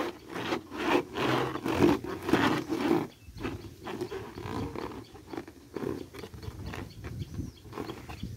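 Hands rubbing and squeezing a large inflated latex balloon, giving an irregular run of squeaks and rubbing strokes that are louder in the first three seconds and softer after.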